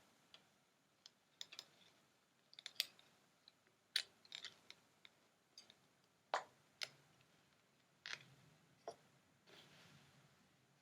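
Near silence broken by about a dozen faint, irregular clicks and taps, with a soft rustle near the end.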